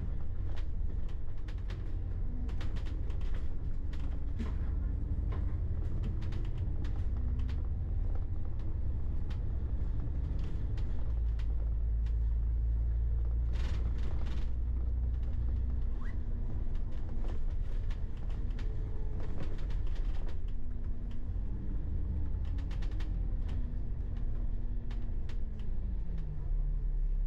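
Riding inside a bus: the engine runs under a low rumble, its note rising and falling with speed and dropping near the end, while the body and fittings give frequent creaks and rattles.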